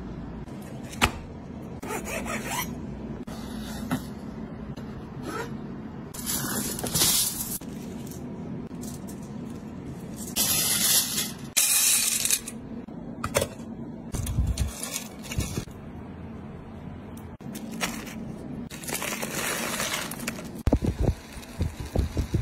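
Small hard charcoal pieces rattling and clattering as they are handled and dropped into a wire-mesh strainer, in several bursts of a second or two with single clicks between, over a low steady hum.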